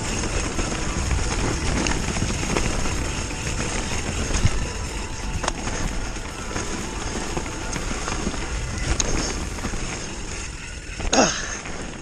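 Mountain bike rolling fast down a leaf-covered dirt trail: wind rushing over the camera mic and tyres on dirt and leaves, with frequent clicks and knocks as the bike rattles over bumps. A louder jolt about eleven seconds in.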